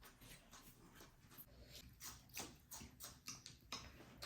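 Faint eating sounds: a string of soft, irregular clicks and mouth noises from chewing spicy noodles and handling cutlery.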